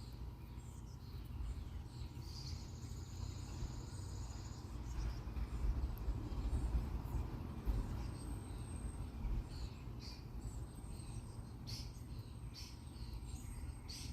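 Outdoor ambience with a steady low rumble that swells in the middle. About two seconds in, a high, even trill lasts roughly two seconds, and scattered short high chirps follow in the second half.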